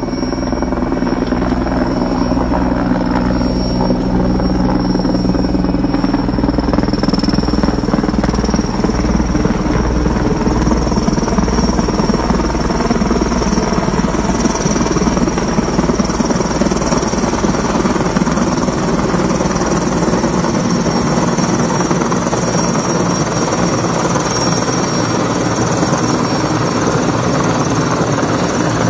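Heavy-lift helicopter hovering close overhead with a steel transmission tower slung beneath it: continuous rotor and turbine noise with a steady high whine and a regular low throb, growing slightly louder in the first couple of seconds as it comes in.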